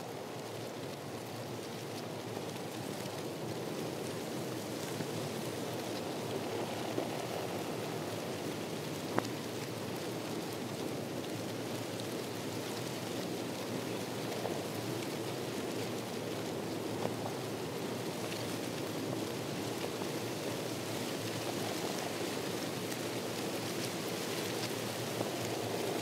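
Steady water ambience: an even rushing hiss with a few faint ticks scattered through it.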